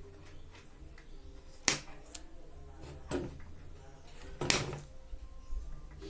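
Wire cutters snipping through the washing machine timer's electrical wires: two sharp snips, one a little under two seconds in and another about three seconds later, with smaller clicks of handling between.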